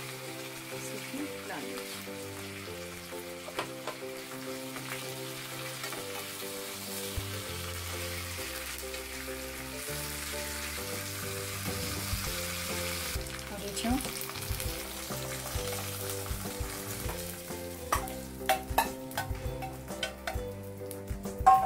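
Tadka of mustard seeds, fenugreek seeds, curry leaves and dried red chillies sizzling steadily in hot oil in a small kadai, over background music. In the last few seconds come sharp metallic clinks as the hot tempering is tipped and scraped from the pan onto the coconut chutney, the loudest just before the end.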